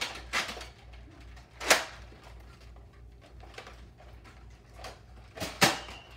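Nerf dart blasters firing: a few sharp pops at irregular gaps, loudest about 1.7 and 5.6 seconds in, with some fainter clicks between.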